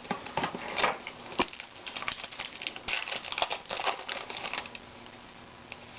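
Trading cards being flipped through by hand: quick irregular flicks and clicks of card edges with light rustling, dying down about four and a half seconds in.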